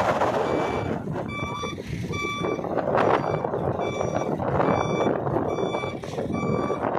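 Caterpillar 426 backhoe loader's reversing alarm beeping about twice a second over its diesel engine running.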